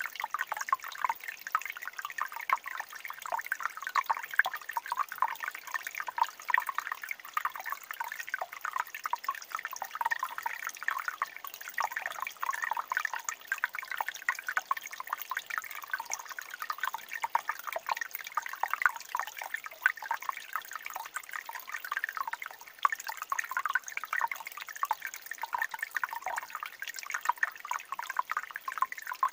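Water trickling and gurgling among rocks: a steady, unbroken run of small drips and splashes.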